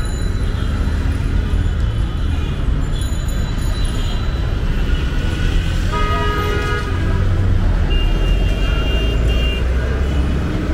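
Road traffic running with a steady low rumble; a vehicle horn toots briefly about six seconds in, and a higher thin tone sounds a couple of seconds later.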